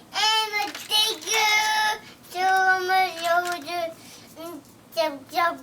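A young child's voice singing in a high, sing-song way with no clear words, in several phrases with some long held notes.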